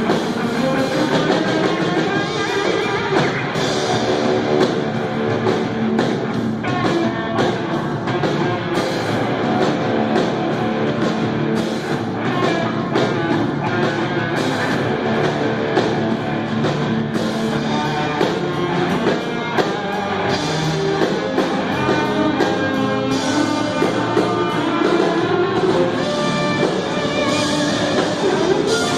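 Rock band playing live, with guitar and drum kit.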